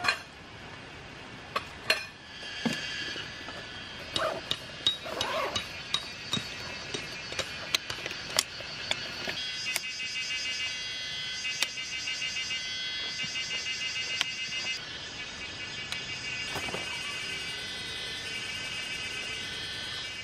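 Camping gear being unpacked and a folding camp chair assembled: a run of sharp clicks, knocks and rustles as the chair's poles and its bag are handled. From about ten seconds in, a steady, pulsing high sound runs beneath the handling.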